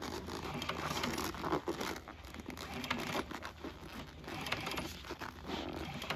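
Upholstery fabric and foam rustling and crinkling in irregular handling noises as hands bend and ease the pieces around a planted needle on an industrial sewing machine.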